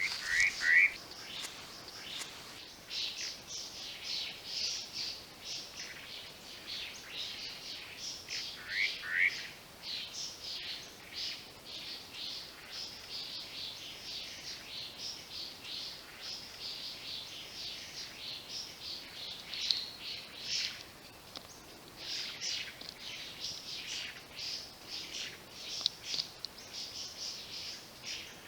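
Spot-breasted parrotbill singing: a long run of quick, high chirping notes, with a pair of lower downslurred whistles near the start and again about nine seconds in.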